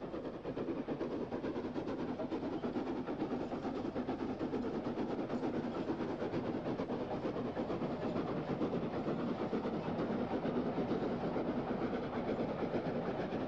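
Highland Railway Jones Goods 4-6-0 steam locomotive hauling a mixed train of goods vans: a steady, rapid chuffing together with the rolling of the train.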